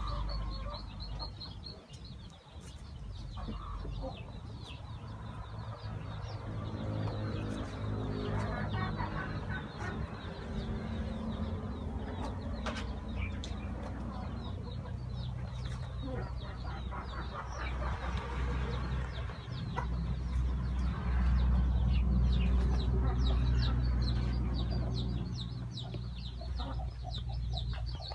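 Domestic hens clucking, with a drawn-out call partway through.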